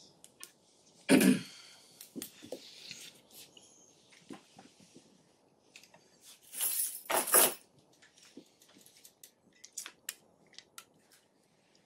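Lecture-room handling noises: scattered small clicks and rustles, a loud bump about a second in, and a longer hissing rustle in two parts around seven seconds in.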